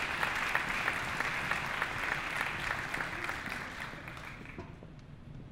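Audience applauding, with many hands clapping. The applause dies away about four seconds in.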